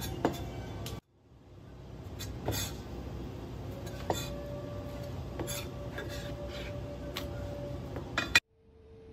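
Kitchen knife slicing pork jowl on a cutting board, with a few scattered sharp taps of the blade against the board and a sharper clink near the end, over a steady background hum. The sound cuts out abruptly twice.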